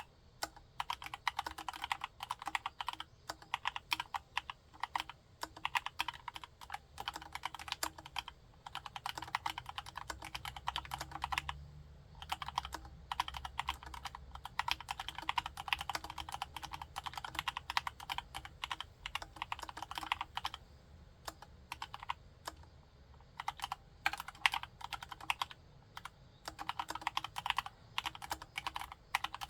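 Typing on a Cox CA106 full-size Alice-layout keyboard with a CNC aluminium case and Gateron Brown tactile switches: quick runs of keystrokes lasting several seconds, broken by short pauses.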